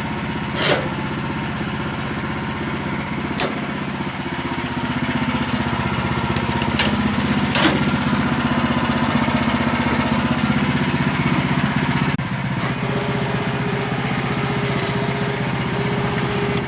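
Gas engine of a portable sawmill running steadily under load as the saw cuts through a log, with a few sharp knocks along the way. About twelve seconds in, the engine note changes and a higher steady tone takes over.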